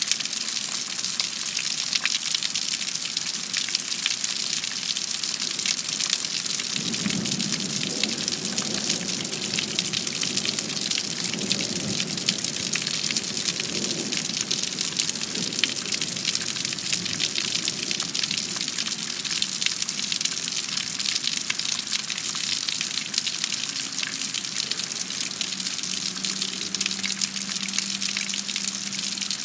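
Heavy thunderstorm rain falling steadily, a dense patter of drops on surfaces. A faint low rumble swells and fades about a quarter of the way in.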